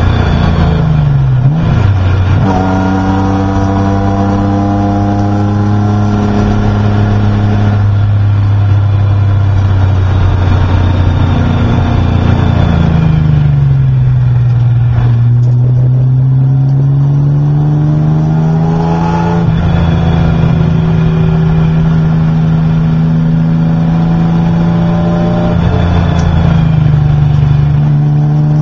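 Race car engine heard from inside the cockpit while lapping a circuit. The revs dip briefly about a second and a half in, hold steady, fall away for several seconds around the middle as the car slows, then climb back up until a gear change about two-thirds of the way through, with another small drop near the end.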